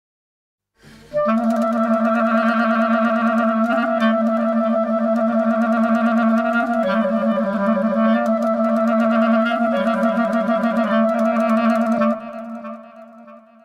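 Clarinet holding long low notes with a wavering, ornamented line, stepping down a little in pitch about halfway through, then fading away near the end.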